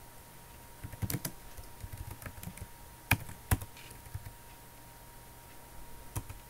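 Keystrokes on a computer keyboard, typing a terminal command in irregular taps: a quick run about a second in, a few more over the next second, the two loudest around three and a half seconds in, and a last tap near the end.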